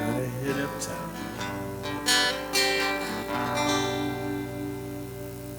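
Solo acoustic guitar strumming the closing chords, a few strokes, then the last chord is left ringing and slowly fades out from about three seconds in.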